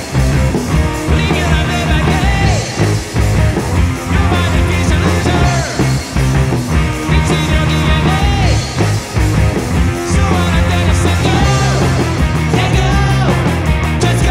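Rock song with a sung vocal over a strong, steady bass.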